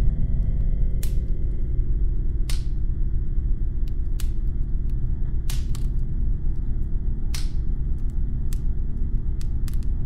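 A steady low rumbling drone of horror sound design, with irregular sharp clicks scattered over it and a few louder, ringing clicks about every two seconds.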